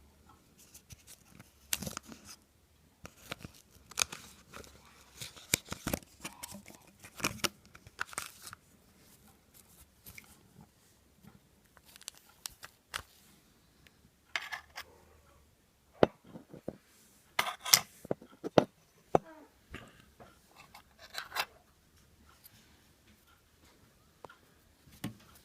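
Hands working on small parts: a scattered run of sharp clicks, scrapes and rustles, loudest in a cluster of snaps a little past the middle.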